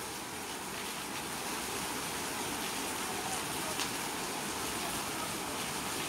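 Steady rushing of a small waterfall and cascading creek water, an even wash of noise.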